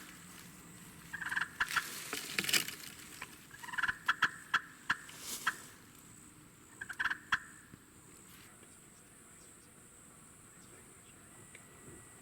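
Osceola wild turkey gobbling, three rattling gobbles in the first eight seconds, then quieter.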